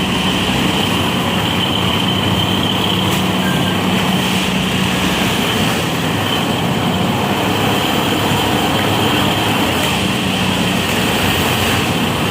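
Unimat railway track tamping machine running: a steady engine drone with a constant low hum and a higher whine above it.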